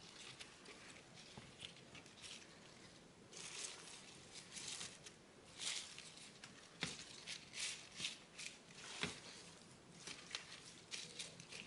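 Oiled dandelion greens rustling and crinkling in irregular handfuls as hands lift, separate and spread them on a metal baking tray, with a couple of sharper clicks about 7 and 9 seconds in.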